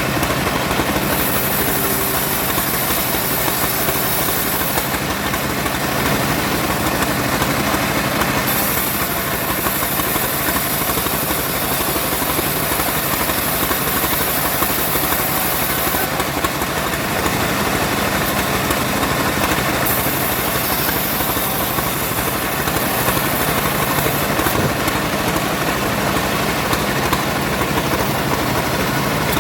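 Engine-driven wood saw running steadily while working through sengon timber, with a bright high hiss that comes and goes in stretches of several seconds.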